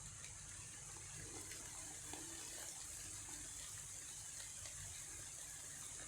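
Light rain falling on woodland leaves, a faint, steady hiss.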